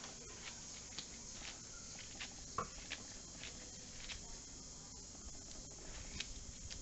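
Faint rustling and small irregular ticks of hands tearing fresh chipilín leaves and dropping them into a bowl of coarse ground-corn masa, with one slightly louder click partway through, over a low steady hiss.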